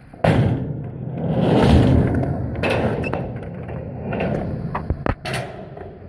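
Skateboard dropping in on a concrete ramp: a sharp clack as the board tips over the coping, then the rumble of its wheels rolling on concrete, swelling about two seconds in, with a couple of sharp knocks of the board along the way.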